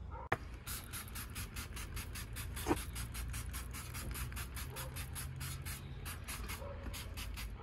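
Trigger spray bottle of wheel cleaner squeezed over and over, about four to five short hissing spurts a second, misting the liquid onto an alloy wheel. Two sharp clicks stand out, one near the start and one about a third of the way in.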